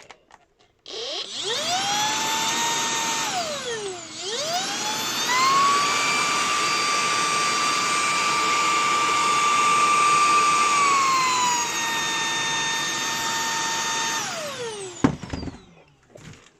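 Shark DuoClean cordless vacuum cleaner's motor whining up to speed as it is switched on; about three seconds in it winds down, then spins back up to a higher, louder pitch. Near eleven seconds it drops to a lower pitch, and it winds down as it is switched off near the end, with a click.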